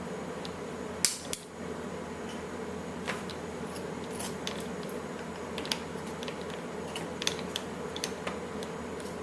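Scattered small clicks and snips of scissors cutting through the fur skin of an Elmo Live toy, with a sharper double click about a second in, over a steady low hum.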